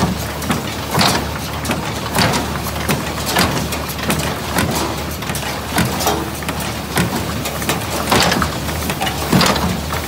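IH 46 square baler running, with a steady low drive hum and a sharp clank from its working parts about once a second.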